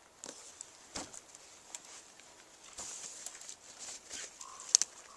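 Rustling and scattered light clicks of a tarp's corner line being pulled and tied off, with a couple of sharp snaps near the end.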